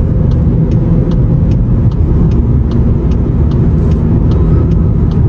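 Steady, loud road and drivetrain rumble inside a 2019 Volkswagen's cabin at speed in a tunnel, with faint rapid ticks over it. There is no bearing hum: the freshly replaced left rear wheel bearing runs quietly.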